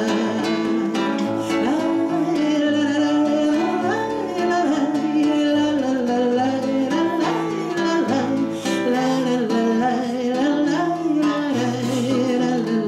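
Classical guitar strummed in waltz time, with a woman's singing voice over it.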